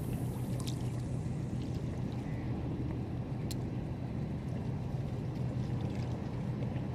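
Steady low drone and wash of the sea against a rock breakwater, with a few faint clicks from the spinning reel as the jig is worked back.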